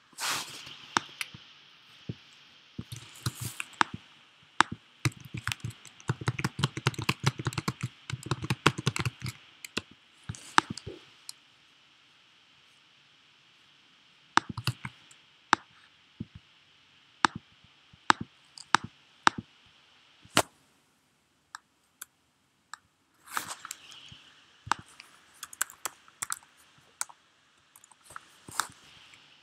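Typing on a computer keyboard: runs of short key clicks, densest a few seconds in and again near the end, with a brief pause in between.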